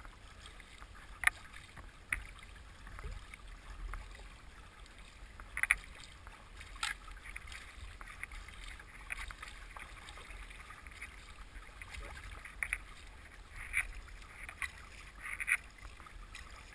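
Water splashing and rushing against the bow of a paddled boat moving through river current, with short sharp splashes now and then over a steady low rush.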